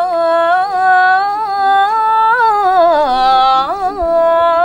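A single voice singing unaccompanied in long, drawn-out held notes that slide between pitches with small ornaments, dipping lower and wavering about three seconds in.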